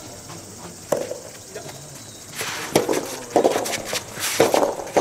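Rackets striking a rubber soft tennis ball during a rally: one sharp hit about a second in, then a quicker run of hits mixed with shoes scuffing on the court from about halfway.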